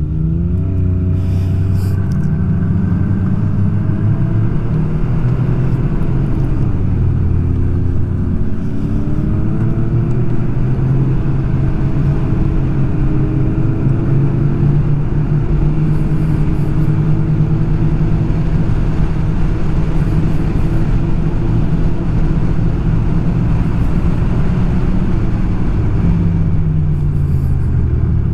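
Snowmobile engine running steadily on the trail, its pitch rising and falling a little with the throttle and easing off near the end.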